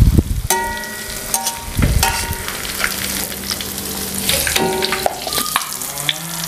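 Tofu frying in hot oil in a wok, the oil sizzling steadily as the pieces are scooped out with a metal strainer ladle and spatula, with a few knocks and short metallic scrapes and rings of the utensils against the wok.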